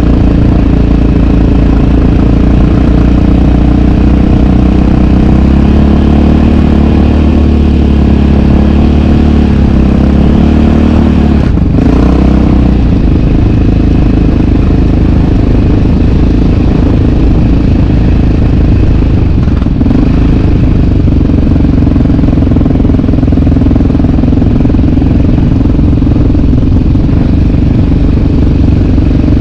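Single-cylinder four-stroke sport quad engine running steadily under throttle, loud on the microphone, with a brief change in engine note about twelve seconds in.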